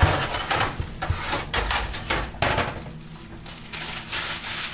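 Knocks, clicks and clatter of kitchen items being moved about on a counter as it is cleared, with several sharp knocks in the first three seconds, then quieter handling.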